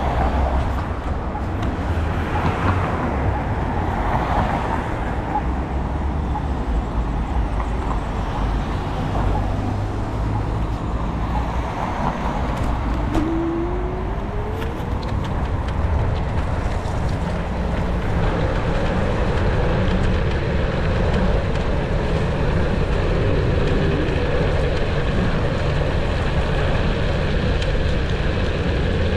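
Road traffic heard from a moving e-scooter: a continuous rushing road noise with cars passing, growing a little louder and steadier in the second half.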